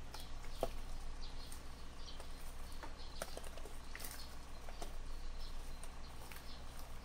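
Hands crumbling soil from a hibiscus root ball: loose potting soil and pumice grains rustle and fall onto newspaper with scattered small ticks and patters.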